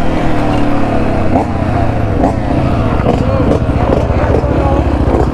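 Yamaha XT250's 250 cc single-cylinder engine running hard on a dirt trail, its engine speed sliding down several times as the bike slows, with another dirt bike's engine running close ahead.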